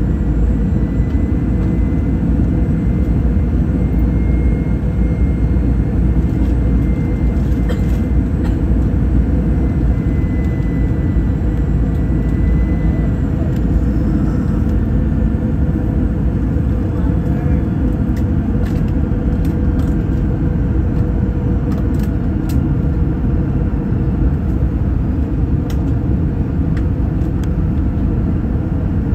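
Steady airliner cabin noise: a continuous low rumble of engines and airflow, with a faint high tone drifting slightly in pitch in the first half and a few faint clicks.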